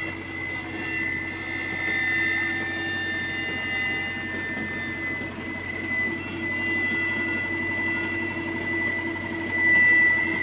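Heavy road-paving machinery running steadily, with a constant high-pitched whine over the engine sound.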